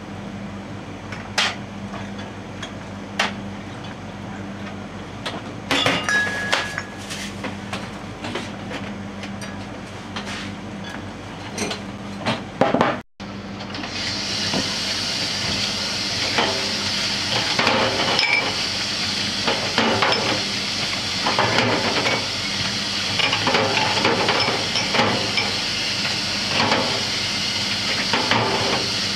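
Glasses and bottles clinking as they are handled and set down on a steel bar counter. About halfway through, a tap starts running steadily into a stainless-steel sink while glasses are scrubbed with a sponge, with repeated glass clinks and knocks against the sink.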